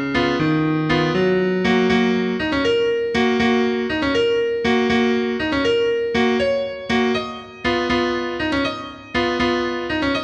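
Calm solo piano music, single notes struck at an even, unhurried pace of a little over one a second, each ringing and fading before the next.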